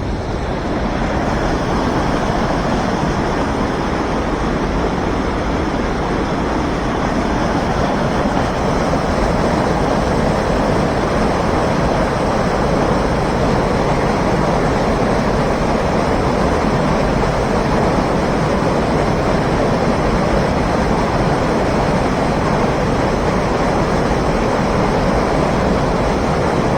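Waterfall: river water pouring over the edge in a loud, steady, unbroken rush.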